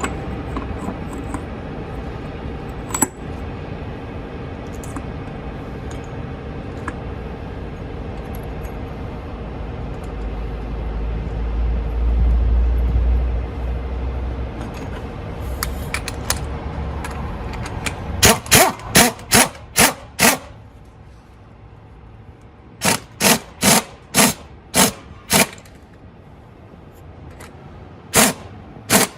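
Three runs of sharp hammer blows on metal, about two a second, from work on the car's rear shock absorber mounting, over a steady background hum with a low rumble swelling and fading in the middle.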